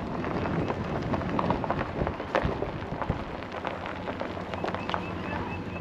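Footsteps swishing through long grass, with a steady crackling rustle. A short run of high chirps comes near the end.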